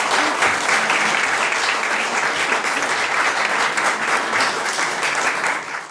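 Audience applauding: many people clapping in a dense, steady round.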